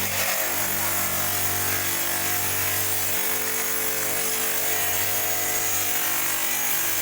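Electric stone-cutting machine running steadily: a constant motor hum under the hiss of the spinning cutting disc.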